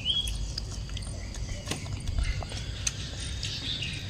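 Quiet eating sounds of people and a baby monkey eating dragon fruit: soft scattered clicks and smacks over a low rumble. There is a short high chirp near the end.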